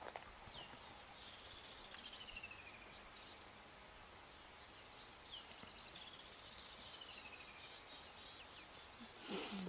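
Birds singing at low level, with many short whistled calls, several of them falling in pitch, repeating throughout. A brief louder rough sound comes near the end.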